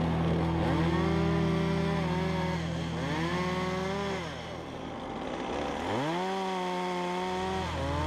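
Gas chainsaw revving up and dropping back three times.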